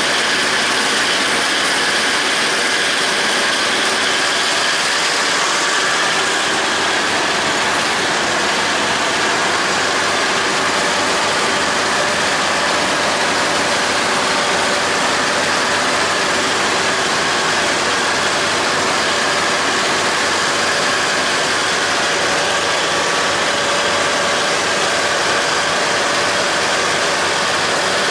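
John Deere 5320 tractor's four-cylinder diesel running steadily under load, together with the PTO-driven John Deere 270 disc mower cutting grass, heard from the driver's seat.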